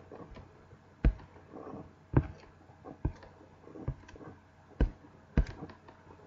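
Sharp single clicks or taps close to the microphone, about six of them roughly a second apart, over faint room noise.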